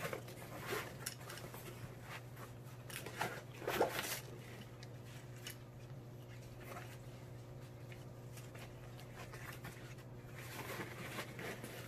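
Nylon padded gun case and its straps being handled as an AR pistol is settled in and strapped down: scattered soft rustles and scrapes, the loudest about four seconds in and a few more near the end, over a steady low hum.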